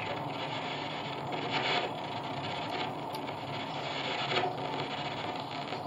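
Spirit box sweeping through radio frequencies: a steady hiss of radio static with brief blips here and there as it skips between stations.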